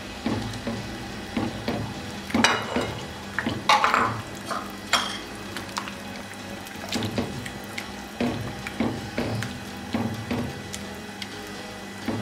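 Silicone spatula stirring soup in a nonstick wok: irregular knocks and scrapes against the pan with the liquid sloshing, a few louder clatters between about two and five seconds in.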